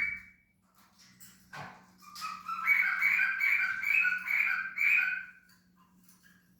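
Pet cockatiel whistling: a short call at the start, then from about two seconds in a run of warbling whistled notes stepping back and forth between two pitches, about three seconds long. A single click comes about a second and a half in.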